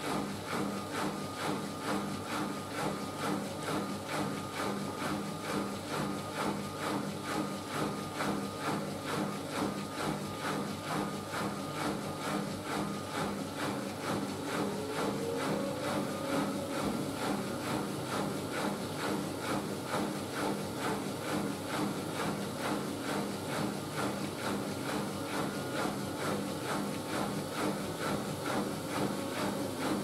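Siemens Siwamat IQ 716 front-loading washing machine in its wash cycle: the drum turns and the wet laundry and water swish in a steady, even rhythm. A faint motor tone rises in pitch about halfway through.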